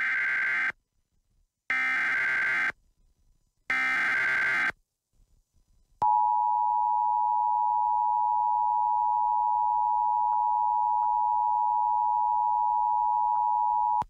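Emergency Alert System broadcast tones: three one-second bursts of SAME header data, a harsh warbling digital buzz, about two seconds apart, then after a short pause the EAS two-tone attention signal, a steady harsh two-note tone that sounds for about eight seconds and stops abruptly. Together they signal the start of an emergency alert, here a flash flood warning.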